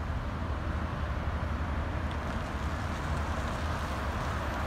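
City street traffic: cars running and passing, a steady low rumble with an even hiss.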